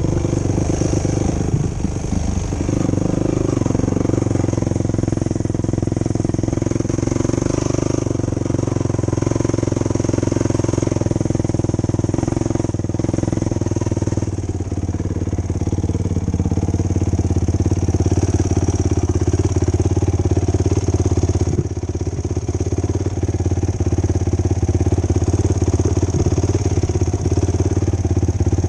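Yamaha YFZ450 quad's single-cylinder four-stroke engine running steadily while being ridden, its pitch wavering as the throttle changes, with brief dips about halfway through and again later.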